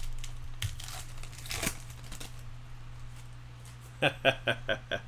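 Foil wrapper of a baseball card pack crinkling and tearing open in a few scratchy rips. Near the end there is a brief burst of a voice.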